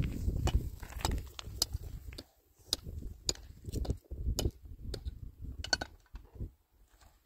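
Stones clacking and knocking against each other as rocks are lifted and set down, a series of sharp, irregular clicks, with a low rumble under them in the first couple of seconds.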